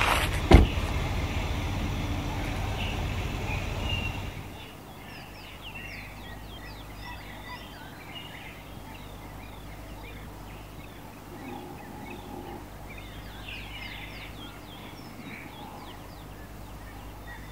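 A steady low hum with one sharp knock about half a second in. A few seconds later the sound cuts to quieter open-air background with many birds chirping.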